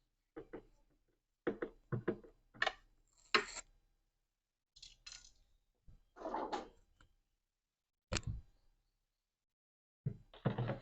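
Scattered knocks and clicks of hand work on the plastic parts of a refrigerator's fan housing while a screw is put in, with a longer scraping rustle about six seconds in.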